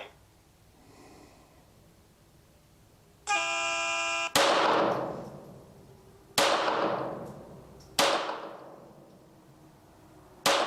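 An electronic range start horn sounds for about a second, roughly three seconds in, then four .22 LR pistol shots from a CZ 75B Kadet conversion ring out about two seconds apart, each with a long echoing tail: the opening of a five-shot rapid-fire string.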